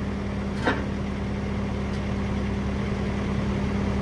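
Skid steer engine running steadily at a constant speed, with one brief higher sound under a second in.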